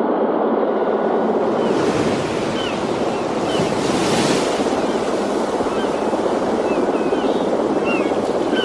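Helicopter rotor wash and engine noise: a loud, steady rushing like strong wind on the microphone. Faint short chirps are scattered through it.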